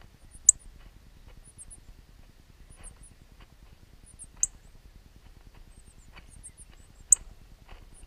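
Northern cardinals at the nest: three loud, sharp, very high chip notes, about half a second, four and a half and seven seconds in, over thin high peeping in short clusters of three or four notes about once a second from the nestlings.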